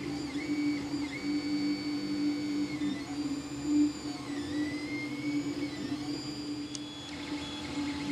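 A Creality 3D printer running a print: its stepper motors whine in high tones that hold, shift and glide in pitch as the print head moves, over a steady hum. A single brief click comes near the end.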